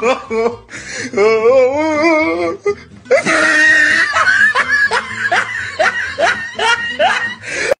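Loud human laughter with music behind it. A wavering, wailing stretch comes first, then from about three seconds in a run of rising 'ha' bursts, about two a second.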